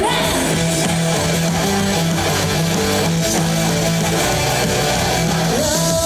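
Pop music at a concert, an instrumental passage without singing, led by strummed guitar over a steady bass line.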